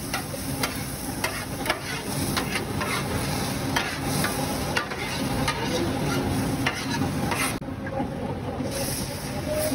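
Food sizzling on a hot pan while being stirred, with irregular sharp clicks of a metal utensil a few times a second.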